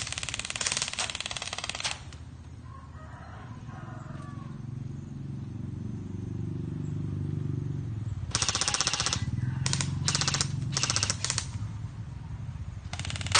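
BB guns (airsoft guns) firing rapid full-auto bursts: a long burst for the first two seconds, then four or five short bursts in the second half, and a dense burst starting near the end, over a low steady hum.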